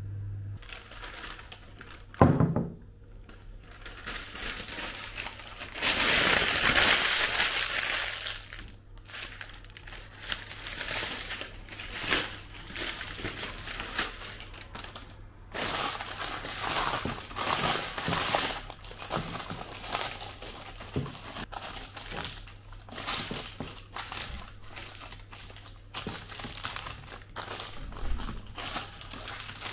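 Brown baking paper crinkling and crumpling as it is handled and pressed by hand into a glass baking dish, in many short irregular crackles. A louder, denser rustling stretch starts about six seconds in and lasts a couple of seconds, and a single sharp knock comes about two seconds in.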